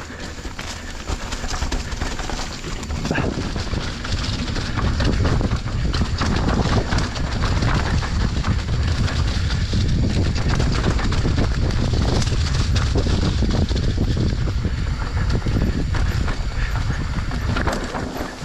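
Enduro motorcycle ridden along a rough forest trail: a loud, steady mix of engine, wind on the microphone and rattling over the ground, building up about four seconds in and easing off near the end.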